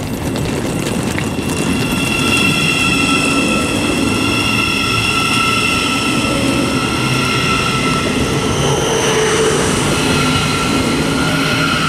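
Thameslink Class 700 Siemens Desiro City electric train pulling out of the station: its traction motors give a high-pitched whine of several steady tones over a rolling rumble, the tones shifting about nine seconds in.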